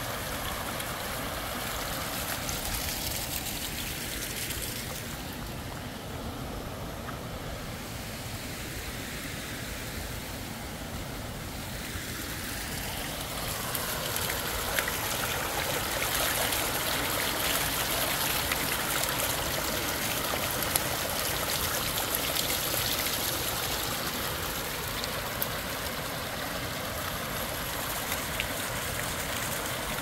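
Water running down a wooden flume and spilling over its end into a rocky mountain stream: a steady rushing and trickling that grows louder and brighter about halfway through.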